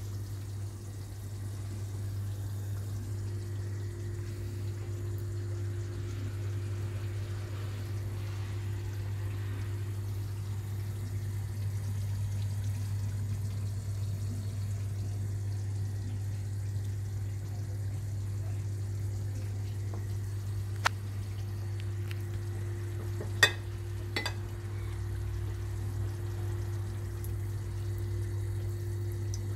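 Steady low hum of kitchen room noise, with a few sharp clicks in the second half, the loudest about two-thirds through.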